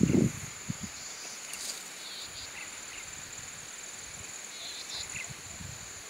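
Insects trilling steadily at a high pitch, with short chirps coming every second or two and a few low knocks in the first second.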